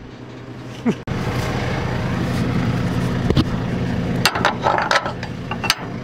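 A diesel engine running at a steady idle, with a few sharp clicks and clanks about four seconds in and again near the end.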